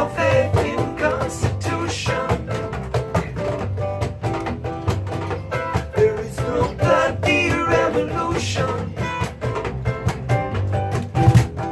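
Live band playing a song: strummed guitar with drums and percussion, and a voice singing over it.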